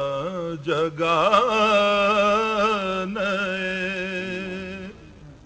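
A man's solo voice singing an Urdu naat (devotional poem in praise of the Prophet) in long held, wavering notes, with a brief break for breath just under a second in and the phrase fading out about five seconds in.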